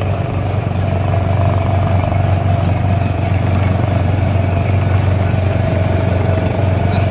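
Small motor of an amusement-park ride car running steadily at driving speed, a constant low hum with a steady higher whine on top.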